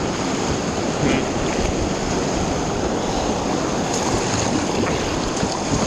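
Steady rush of river water around a paddled raft, with wind buffeting the action-camera microphone.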